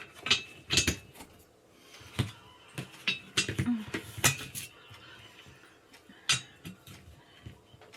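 Gaming-chair parts being handled and fitted together during assembly: a string of sharp clicks, knocks and clinks at irregular intervals, thinning out in the second half.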